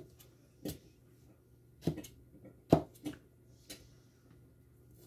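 Kitchen knife dicing green pepper on a cutting board: separate, unevenly spaced knocks of the blade striking the board, about six in five seconds, the loudest a little under three seconds in.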